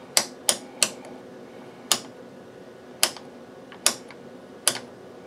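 HP 8405A vector voltmeter's frequency-range rotary switch turned by hand, clicking through its detents: seven sharp clicks at uneven intervals, three in quick succession and then four more spread out, as it is set to the 200 MHz range.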